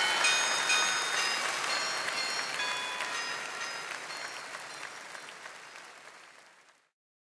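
Audience applauding, with a few whistles, fading out steadily and ending in silence about seven seconds in.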